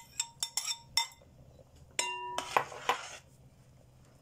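Metal spoon clinking against a stainless steel soup pot while the broth is stirred: a quick run of light clinks in the first second, then a louder ringing clink about two seconds in, followed by two more.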